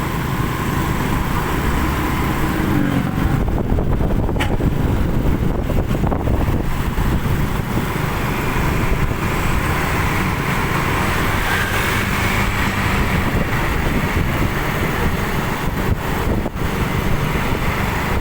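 Vehicle engines running in road traffic, a steady low rumble.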